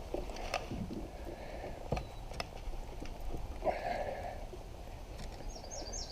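Faint knocks and rustles of fishing gear being handled in a kayak, with a quick run of short high chirps near the end.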